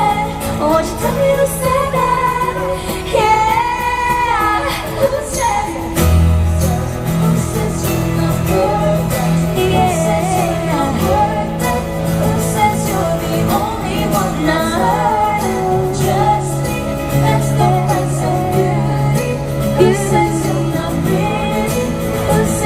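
Live pop band playing with a woman singing over it, the vocal lines bending and sliding in pitch.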